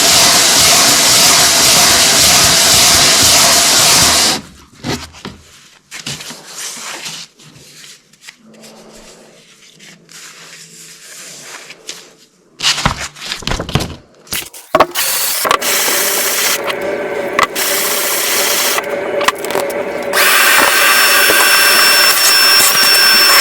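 Power tool stripping rust and grime off the old vise's parts. It runs steadily, stops about four seconds in, and a few knocks of handling follow. It starts again about two-thirds of the way through and runs louder near the end.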